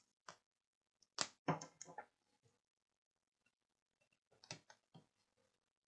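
Faint, scattered small clicks and knocks of hands handling a circuit board in a plastic PCB holder on a workbench: a quick cluster of taps about a second in, and a few fainter clicks near the end.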